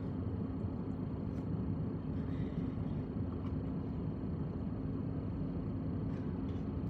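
Steady low background rumble with a constant low hum, like a vehicle or machinery running, and a few faint clicks.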